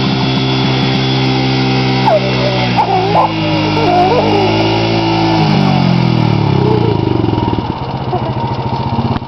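ATV (four-wheeler) engines running steadily. About five and a half seconds in, one engine note falls in pitch as the small utility quad slows on its approach.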